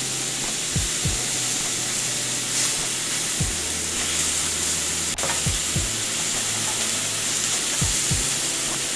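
Lemon slices sizzling steadily in butter and pan juices in a stainless steel pan, stirred and pushed around with a metal slotted spatula. There are a few soft knocks and one sharp click about five seconds in.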